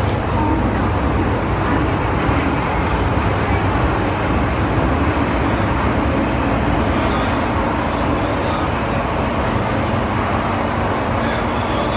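Cabin noise of an MTR M-Train electric multiple unit on the move: a steady, even running noise of wheels on rails with a low hum underneath.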